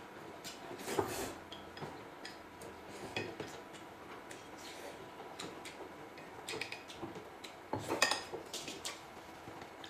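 Cutlery and dishes clinking: utensils tapping and scraping against bowls and plates in scattered light clicks, with louder clatter about a second in and again around eight seconds.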